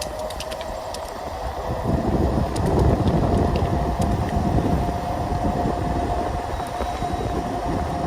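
A 5TH WHEEL V40PRO electric scooter riding in speed mode: its 48V motor gives a steady whine that rises slightly in pitch over the first few seconds, over wind and wheel rumble that get louder about two seconds in.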